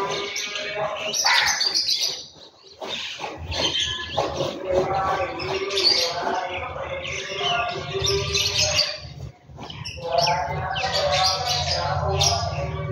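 A flock of house sparrows chirping busily and almost without pause, with two brief lulls; a low rumble runs underneath from a few seconds in.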